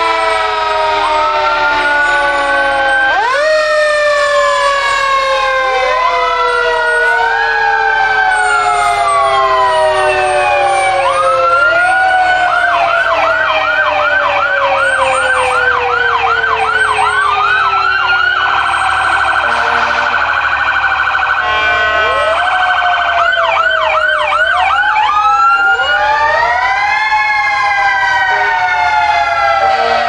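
Several emergency-vehicle sirens sounding at once from fire apparatus, a chief's SUV and an ambulance driving past in a line. Long wails rise and slowly fall, overlapping one another, with a fast yelp cutting in about twelve seconds in and again near twenty-three seconds.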